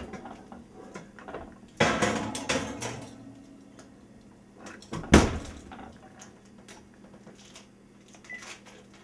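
An oven door opening and a glass baking dish going onto the rack with a clatter and scrape, then the oven door shutting with a loud bang about five seconds in. Near the end there is a short beep from the oven's keypad.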